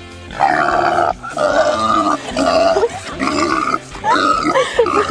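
A pig squealing loudly in a run of about five long squeals.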